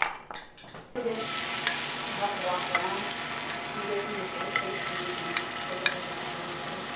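Plantain slices frying in oil in a cast-iron skillet: a steady sizzle with scattered pops, starting about a second in.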